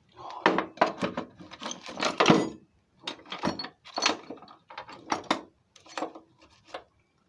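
Small metal lathe parts and tooling being handled and set down: a string of irregular knocks, clicks and clinks, several a second.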